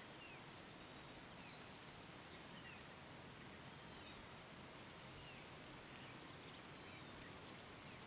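Near silence: faint outdoor background hiss with faint, short bird chirps about once a second.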